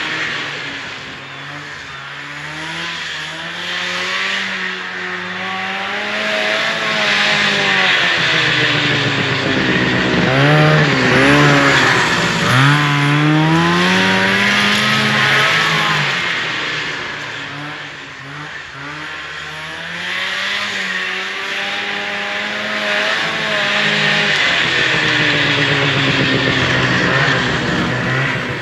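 1974 Arctic Cat Lynx snowmobile's fan-cooled 340 two-stroke engine running under throttle, its pitch rising and falling as it revs up and backs off, with a quick drop and climb about ten seconds in.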